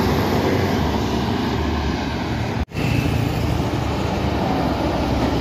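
An intercity coach passing close by, its engine and tyres making a steady rumble. It breaks off abruptly a little over two and a half seconds in, and steady road noise from approaching trucks follows.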